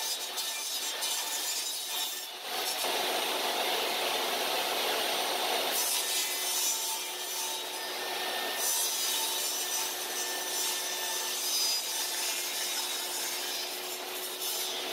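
Table saw running and ripping a thin black sheet as it is pushed flat through the blade. The sound is a steady cutting noise that shifts in strength a few times as the sheet is fed.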